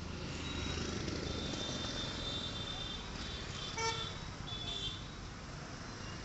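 Street traffic noise with vehicle engines running past, and a short horn toot just under four seconds in.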